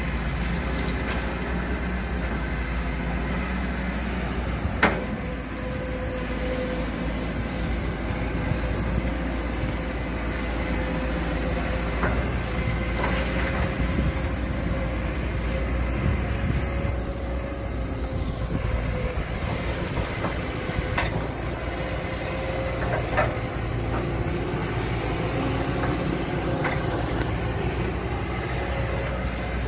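Kobelco hydraulic excavator's diesel engine running steadily as it tracks over a dirt mound, with a steady whine. A few sharp knocks, the loudest about five seconds in.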